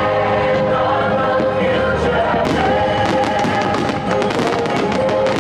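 Fireworks bursting and crackling over the show's sustained music soundtrack, with a dense run of bangs starting about halfway through.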